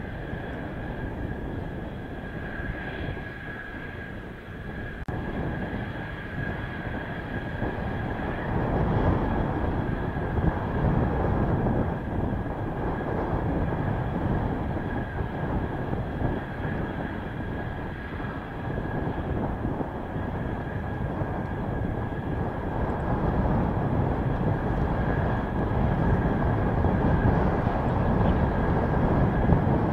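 Mitsubishi F-2 fighter's turbofan jet engine running on the ground, a steady high whine. Heavy gusty wind noise on the microphone grows louder about a third of the way in and again near the end.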